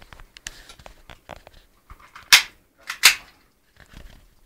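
Airsoft pistol firing two sharp shots about 0.7 s apart, amid faint scattered clicks and knocks.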